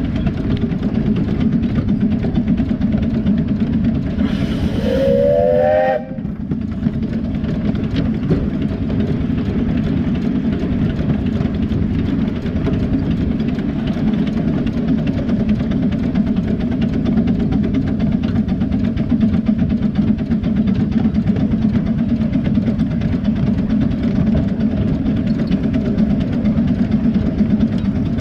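7¼-inch gauge miniature steam locomotive running along the track, with a steady rumble. About four seconds in, its steam whistle is blown once for about two seconds, a pitched blast with a hiss that rises slightly as it opens.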